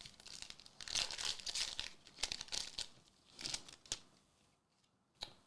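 Foil booster-pack wrapper crinkling and tearing open, in a few rustling bursts, with a single sharp click near the end.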